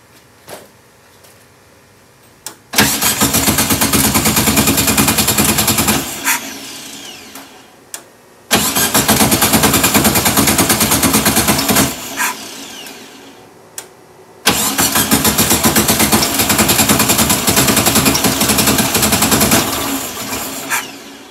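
1967 VW Karmann Ghia's air-cooled flat-four engine being cranked three times, each try running a few seconds with a fast even pulse and then winding down. The mechanical fuel pump is not delivering fuel, so the engine will not keep running.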